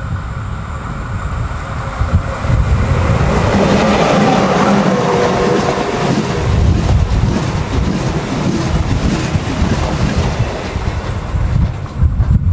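Electric passenger train passing close by on the line, its wheels rumbling on the rails. The sound swells over the first couple of seconds, stays loud as the coaches go past, and dips briefly near the end.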